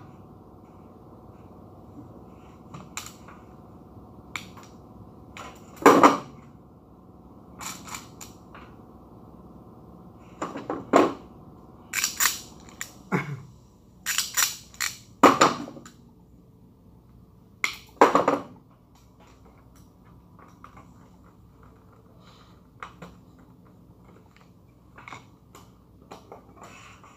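Irregular sharp clicks and clacks of a screwdriver and wire ends being worked into the terminal blocks of an elevator control panel, thickest between about ten and eighteen seconds in, over a faint steady hum.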